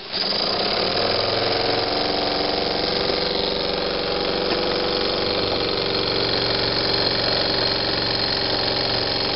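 Homebuilt double-acting oscillating steam engine starts suddenly and runs fast and steadily, with a hum of many even tones. It is driving a stepper-motor generator by belt, so it is running under load.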